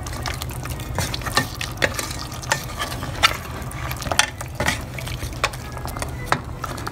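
Wooden spatula stirring cooked bone-in mutton in a stainless steel pot, with irregular knocks and scrapes against the pot, over a steady low hum.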